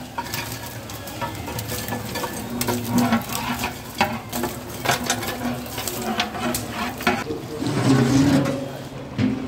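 Raw chicken pieces hitting hot oil in a large metal cooking pot and sizzling, while a long metal ladle scrapes and stirs them through the pot with repeated sharp scrapes and knocks.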